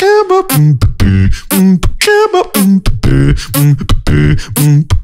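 Solo vocal beatboxing into a microphone: sharp kick, snare and hi-hat sounds in a steady beat, woven with short pitched bass notes made by the voice.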